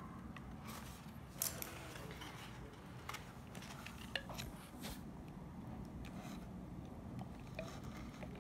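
Scissors snipping the packaging fastenings that hold a doll in its cardboard box: faint, scattered small clicks and snips.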